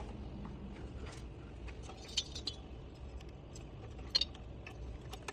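Light plastic clicks and clinks from zip ties and wiring being handled and fastened to a motorcycle's wire harness, a few scattered ticks with the sharpest ones a little after two seconds and about four seconds in.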